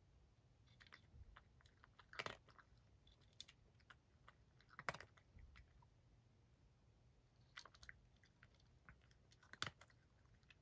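A domestic cat crunching dry kibble from a dish: faint, irregular crunches in small clusters, the loudest about two, five and nine and a half seconds in.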